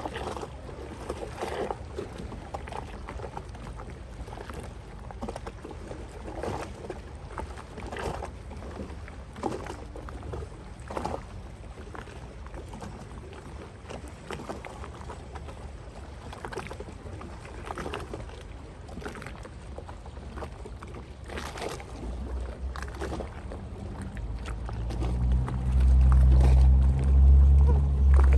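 Small waves splashing against the shore, one after another. In the last few seconds a boat engine's low drone rises and becomes the loudest sound.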